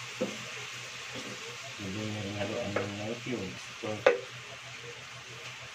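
Pork cubes sizzling as they brown in a nonstick frying pan, stirred with a spatula that scrapes and taps the pan a few times.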